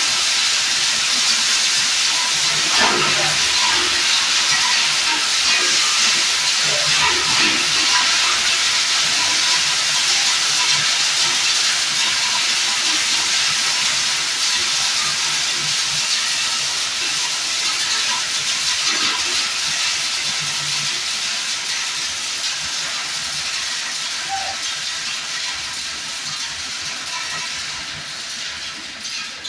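Plastic lumps grinder machine running with a steady, loud hissing noise that eases off gradually toward the end.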